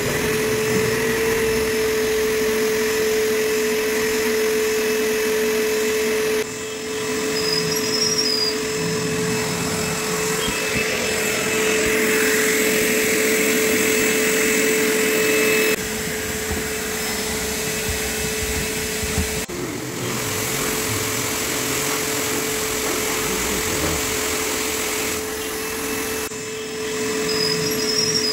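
Industrial drum-type wet-and-dry vacuum cleaner running steadily with a constant whine while cleaning a car's interior. The sound jumps abruptly a few times.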